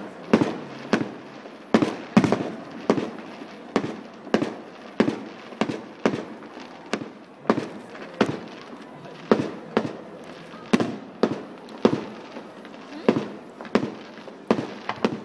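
Aerial fireworks shells bursting in a steady series of sharp bangs, a little more than one a second, each followed by a short rolling echo.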